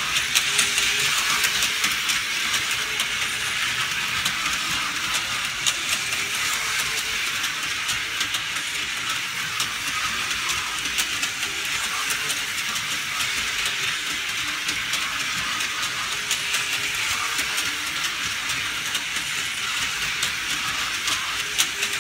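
Lionel Classics electric race car set (1991 reissue of the 1912–16 design): tin-plate toy race cars running around metal slot-rail track, making a steady whirring rattle of small motors and wheels on the rails, with frequent small clicks throughout.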